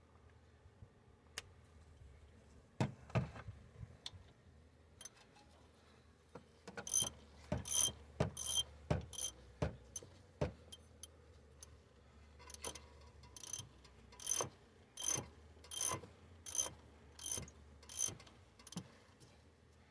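Ratchet wrench clicking in repeated strokes on a bolt, about two a second, with a sharp metallic ring to each stroke; the strokes are loudest and quickest in the first half, then come a little slower.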